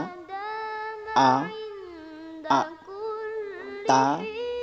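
A voice reciting Arabic letter syllables (ba, ta) in a sing-song chant. Three syllables begin, each drawn out into a long held note, about one every one and a half seconds.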